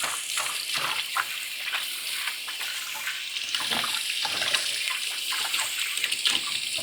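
Kitchen tap running steadily into the sink, the water splashing irregularly.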